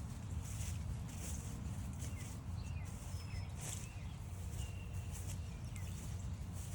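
Footsteps crunching along a trail at a steady walking pace, with a few short bird chirps and whistles in the middle, over a steady low rumble.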